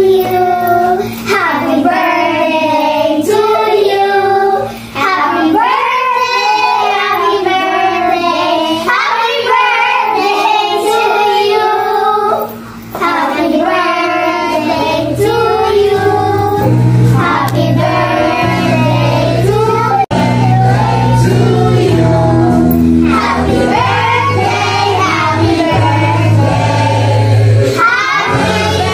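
A group of young girls singing a song together over a music backing track, whose bass comes in much more strongly about halfway through.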